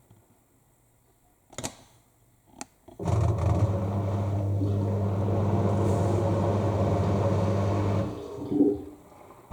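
AEG L7FE7461BI washing machine in its final spin stage: after a couple of clicks, the machine runs with a steady electric hum for about five seconds, then stops briefly with a knock, in the on-off pattern of the drum or pump working in short bursts.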